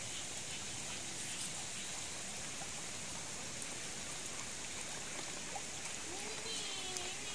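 Steady hiss of light drizzle, with faint scattered drips. Near the end a faint wavering call begins.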